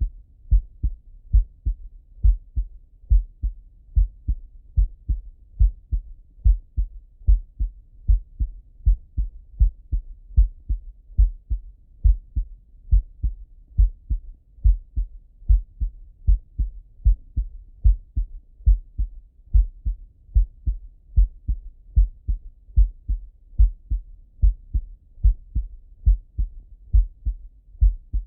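A man's heartbeat heard through the bell of a Littmann stethoscope: a steady, regular rhythm of low double thumps (lub-dub).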